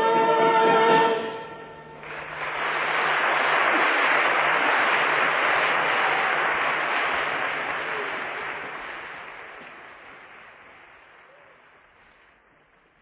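A sung song ends on a held note about a second in, then audience applause rises and slowly fades out to silence.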